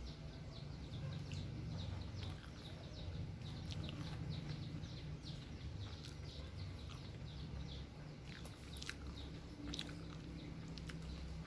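Small plastic-insulated wires of a UTP network cable being untwisted and straightened by hand: faint, irregular crackling and ticking, over a low steady hum.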